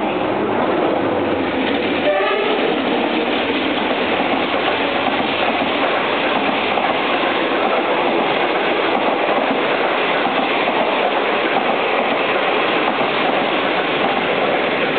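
Intercity passenger train running past at speed: a loud, steady rumble of wheels on rails. A brief horn note sounds about two seconds in.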